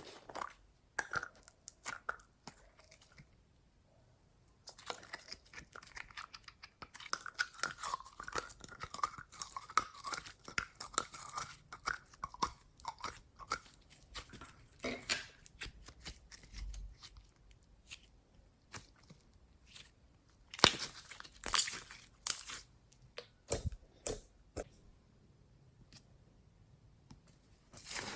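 Glossy slime being squeezed and worked by hand: irregular sticky clicks, pops and crackles, coming thick and fast for stretches and thinning out to scattered clicks in between.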